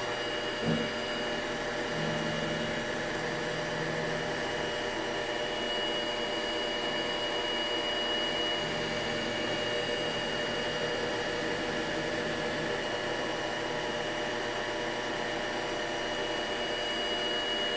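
Manual metal lathe running steadily with a thin high whine over its hum, while a short cold-rolled steel blank turns in the chuck and is faced off by hand.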